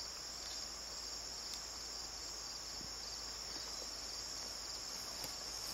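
A steady, high-pitched chorus of insects trilling without a break.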